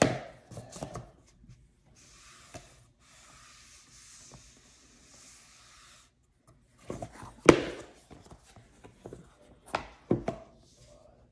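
A new iPad case being handled. Its stiff folding cover flap is bent and rubbed to break it in, making a soft scraping hiss for a few seconds. Then come several knocks and taps of the case against the tabletop, the loudest about seven and a half seconds in.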